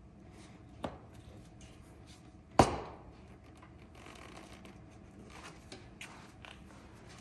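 Steel tire irons prying a dirt bike tire's bead off the rim. There is a small click about a second in and one sharp metal clack about two and a half seconds in, then a few faint ticks of tools and rubber being handled.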